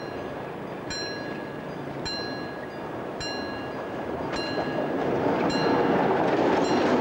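Level-crossing warning bell ringing, one strike about every second, while a diesel locomotive approaches, its engine and wheels growing louder over the last couple of seconds.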